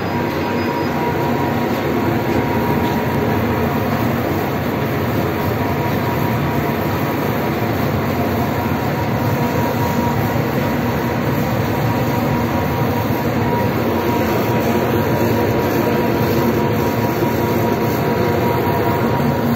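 Dual-head fabric laser cutting machine running as its two heads cut printed fabric: a steady, even machine noise with a faint constant whine.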